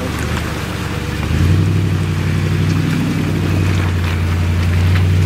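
Jeep Grand Cherokee engine running steadily under load as it drives through water, its note growing louder about a second and a half in, over a hiss of water.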